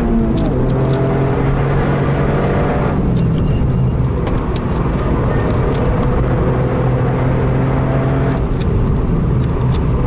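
A heavily modified Toyota GR Yaris's turbocharged three-cylinder engine pulls hard at track speed, heard inside the cabin over tyre and road noise. The engine note climbs for the first few seconds, eases off about three seconds in, and comes back on the throttle near the end.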